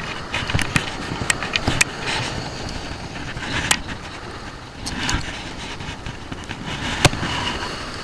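Clothing rubbing and knocking against a body-worn camera while walking on wet sand: a steady rustle with scattered sharp clicks, the loudest about halfway through and near the end.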